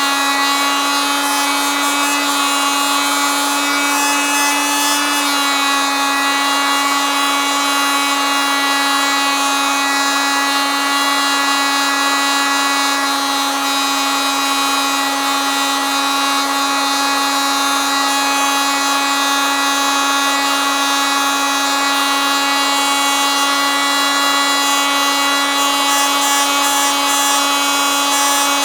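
Oscillating multitool running continuously with a steady, high buzz. Its pitch dips slightly about five seconds in and then holds.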